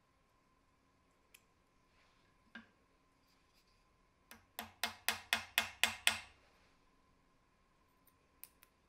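Hammer tapping a small rivet to fix a metal nameplate onto a drill press head: a quick run of about eight sharp taps, four or five a second, a little past the middle, with a few light clicks of handling before and after.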